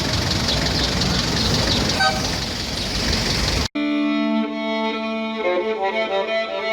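A steady rushing noise with a brief pitched tone about two seconds in cuts off abruptly just past halfway, and violin music starts at once.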